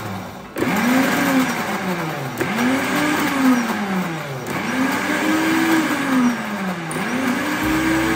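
A 700 W electric countertop blender pulsed on a thick mix of milk powder, coconut oil and water. Its motor speeds up and then winds down again roughly every two seconds, and the last pulse is held longer.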